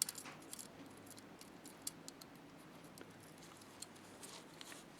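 Faint, scattered small clicks and ticks of a wire and small metal terminal parts being handled as the wire is fitted onto a terminal post, with one sharper click right at the start.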